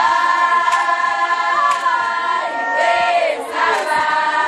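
A group of voices singing a Zulu song in chorus, holding long notes, with a short break about three and a half seconds in before the next phrase.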